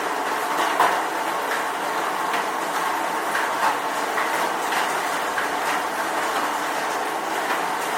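Steady rain falling, an even hiss with many small sharp drop ticks scattered through it.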